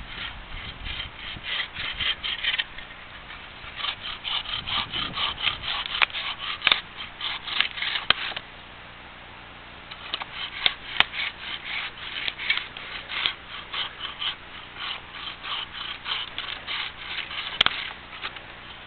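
Hand saw cutting through a downed cedar log, with rapid back-and-forth strokes of about three a second. It runs in three bouts with brief pauses between them and a few sharp clicks, and stops shortly before the end.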